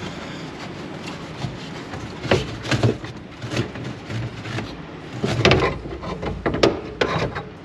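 Scattered knocks, clicks and rustling from hand work on an old pickup: wiring and parts being handled and pulled during removal of a wiring harness, in clusters about two seconds in and again from about five seconds in.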